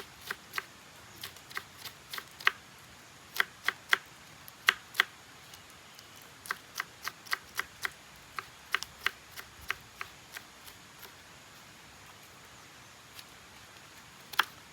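Knife slicing winged beans thinly, each cut a sharp tap, a few a second in uneven runs. The taps stop about ten seconds in, and one more comes near the end.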